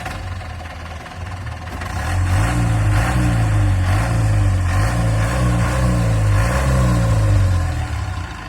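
Mahindra van's engine revved up and down over and over, its pitch rising and falling several times in a row from about two seconds in until near the end.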